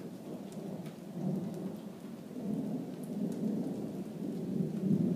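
Thunder rumbling in long rolling swells, loudest near the end, over steady rain falling.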